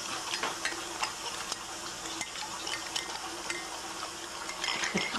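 Egg-dye tablets fizzing in vinegar in ceramic mugs, a steady hiss with scattered light clicks of a spoon stirring against the mugs.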